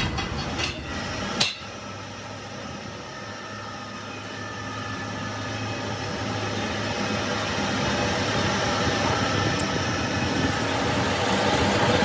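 Metal lathe running with a transmission countershaft chucked in it: a steady machine hum and whine that grows gradually louder. A sharp click comes about a second and a half in, where the sound drops suddenly.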